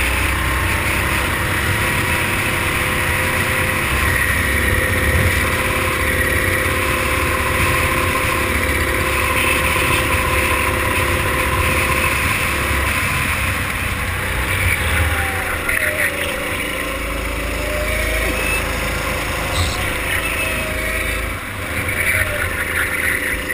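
Go-kart engine running at speed under constant rushing wind and road noise, its note dipping and climbing again through the corners in the second half.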